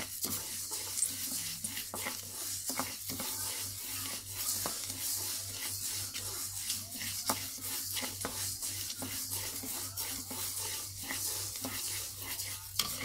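Dry glutinous rice grains being stirred and scraped around a wok with a wooden spatula while they toast. There is a steady rustling hiss with frequent small clicks, and a low steady hum underneath.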